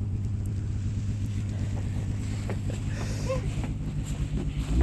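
Small engine running steadily at idle.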